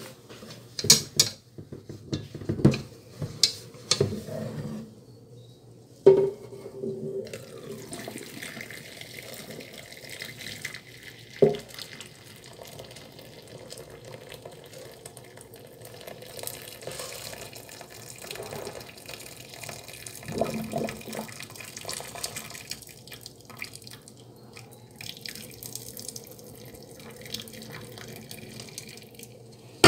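Boiling water being poured off a pot of mung beans into a stainless steel sink drain, a steady pour and splash. Several sharp knocks of the metal pot against the sink in the first six seconds, and one more about eleven seconds in.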